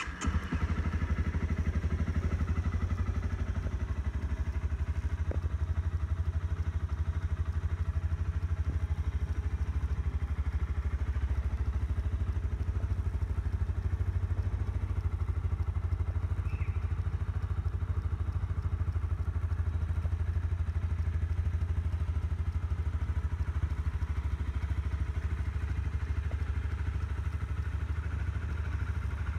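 Honda CRF250L's single-cylinder four-stroke engine starting and settling at once into a steady idle.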